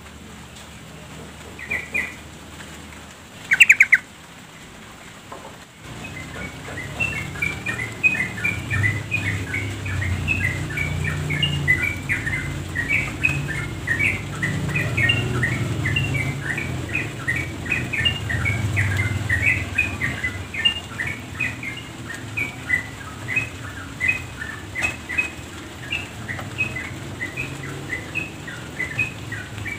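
Female yellow-vented bulbul calling: two short calls in the first four seconds, then from about six seconds in a long run of quick, chattering chirps, several a second. This is the female's call that stirs caged males to sing.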